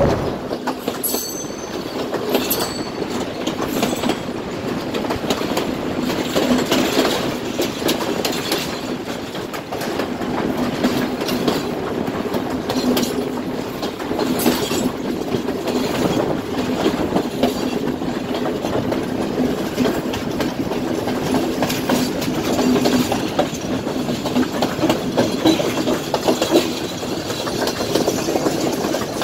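Passenger train running, heard from an open window of one of its carriages: a steady noise of the moving carriages, with the wheels clacking over the rails now and then.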